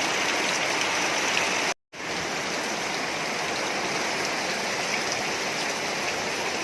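Heavy rain pouring down in a steady hiss. The sound cuts out completely for a split second about two seconds in, then carries on slightly softer.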